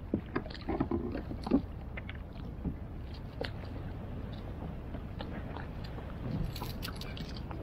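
Scattered small clicks and knocks of a freshly caught grinner and its lure being handled and unhooked by hand, over a steady low wash of water and wind around the kayak.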